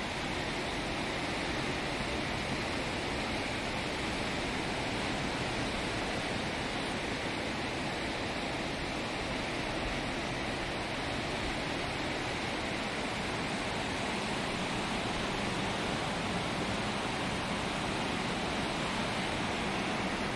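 Ocean surf breaking on the beach below: a steady, even rush of white water with no single wave standing out.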